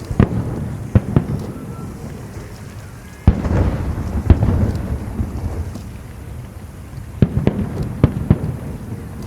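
Aerial firework shells bursting with deep booms, each followed by a low rumbling echo that slowly fades. The heaviest bursts come about three and four seconds in, and a quick cluster of sharper bangs comes near the end.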